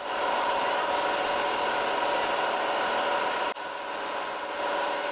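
Steady machine hum made of several constant tones over a noisy wash, with a brief dip about three and a half seconds in.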